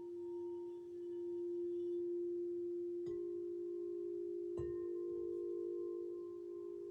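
Crystal alchemy singing bowl tuned to F ringing with a steady sustained tone. About three seconds in and again about a second and a half later, soft strikes add further bowl tones a little higher in pitch.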